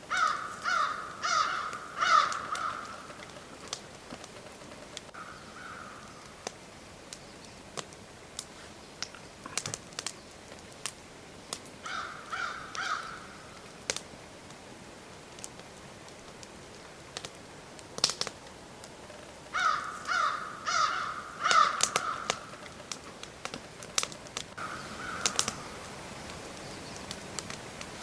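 Crow cawing in runs of harsh calls: several short series of three to five caws, with single caws between. Scattered sharp clicks and snaps come in between the runs.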